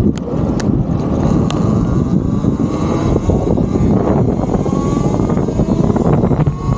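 Wind rushing over the microphone and road noise from a Talaria Sting MX4 electric dirt bike riding along a street, a loud, steady, low rumble.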